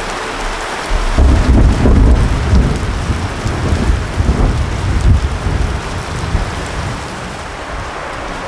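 Steady heavy rain with a long rolling rumble of thunder that starts about a second in, is loudest over the next few seconds and dies away near the end.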